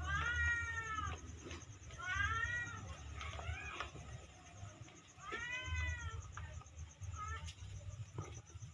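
An animal's drawn-out calls, four times, each rising and falling in pitch and lasting under a second.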